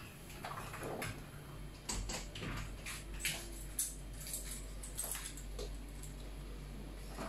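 Scattered light clicks and knocks of small objects being handled on a workbench, over a low steady electrical hum.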